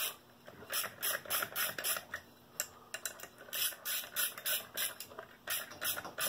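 Ratcheting hand tool clicking in short runs with brief pauses, turning bolts a couple of turns at a time into the face of a HiSUN 250 secondary clutch to press its sheave open for the belt.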